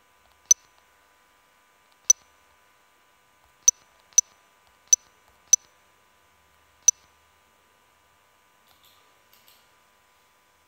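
Seven short, sharp user-interface tap clicks at uneven intervals, the sound a phone or app gives when an on-screen button is pressed. A few faint soft ticks follow near the end.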